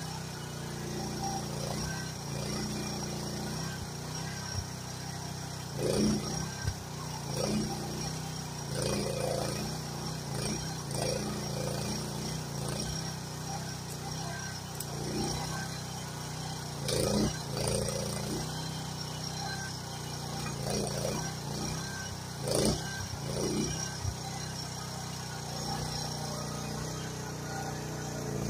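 Groundhog KH14G mini excavator's small engine running steadily under hydraulic load, with a dozen or so short crunches and cracks as the rake attachment pushes and drags through brush and saplings.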